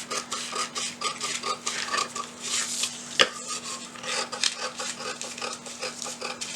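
Scissors snipping through paper in quick repeated cuts, following the pattern line, with one sharper click about three seconds in.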